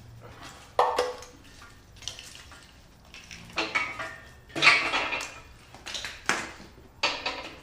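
Metal clanks and clinks from a CA18DET engine and its engine stand being handled and readied for turning over: about five sharp knocks, each with a short ring.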